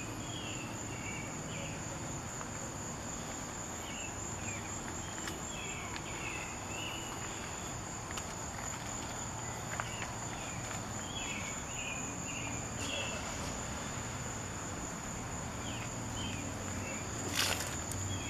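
Outdoor summer ambience: a steady high-pitched insect drone, with scattered short chirps and a faint low hum underneath. A brief knock comes near the end.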